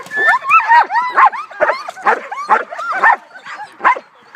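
German Shepherd dog giving high, yelping barks in quick succession, two or three a second, with a short pause near the end.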